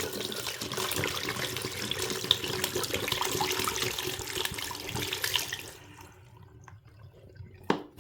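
Water running out of a water bottle and splashing steadily for about six seconds, then tapering off.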